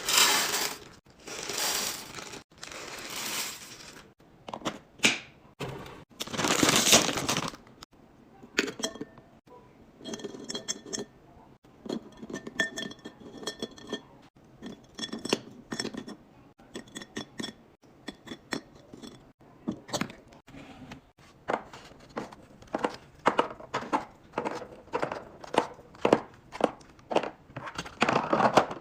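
Snacks and drinks being unpacked and placed into fridge and pantry bins. Packaging rustles and crinkles for the first few seconds, ringing clinks of glass or metal come through the middle, and quick taps and knocks of items set into plastic containers follow near the end.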